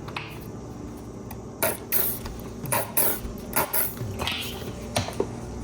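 Nearly empty squeeze bottle of mustard squeezed hard several times, spitting and sputtering air in about six short, hissy squirts as the last of the mustard comes out.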